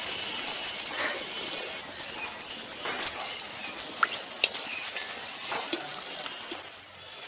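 Tel pitha batter of rice flour and jaggery deep-frying in hot oil in a clay kadai: a crackling sizzle that gradually dies down, with a few sharp pops.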